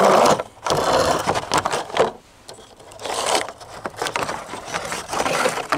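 Hard-plastic rocket-launcher rail being pulled out of its cardboard box: cardboard and plastic scraping and rustling in several noisy stretches, loudest right at the start.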